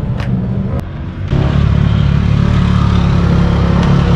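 A vehicle engine running, stepping up in loudness about a second in and then holding a steady note.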